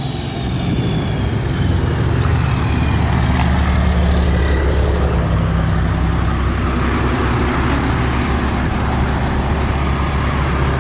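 Diesel engine of a Ram heavy-duty dually pickup running steadily with a deep, even drone, a faint whistle falling in pitch over the first few seconds.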